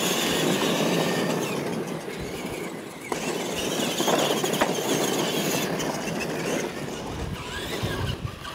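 Two R/C monster trucks racing on a dirt track: a motor whine that rises and falls over the rush of tyres on dirt and gravel, with a sharp knock about three seconds in and another about a second and a half later as the trucks go over the ramps.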